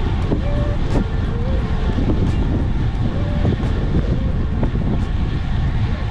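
Wind buffeting the microphone of a camera carried on a moving road bike, a loud steady rumble, with a few faint short tones over it.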